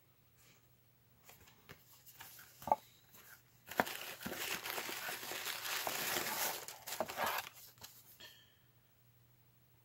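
Black paper wrapping in a cardboard mailer box rustling and crinkling as hands open it and lift out cards, for about four seconds, after a few light handling ticks and one brief squeak near the third second.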